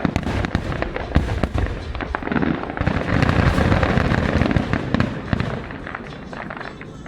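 Fireworks going off in a rapid run of bangs and crackles. The bursts are thickest from about two and a half to five and a half seconds in, then die away.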